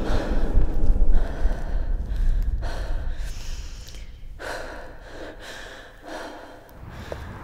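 A woman breathing heavily in gasps, roughly one breath a second, the breaths growing quieter as she catches her breath. A low rumble underneath fades out about halfway through.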